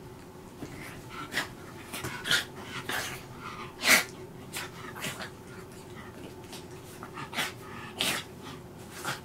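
A small shaggy dog rolling and wriggling on its back on a blanket, giving a string of short, irregular sounds, the loudest about four seconds in.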